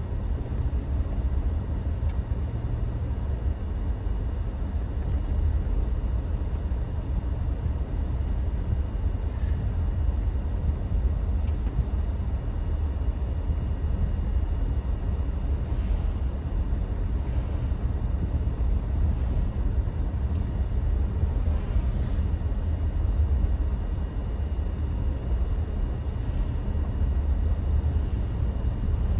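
A vehicle on the move: a steady low rumble of road and engine noise that keeps an even level throughout.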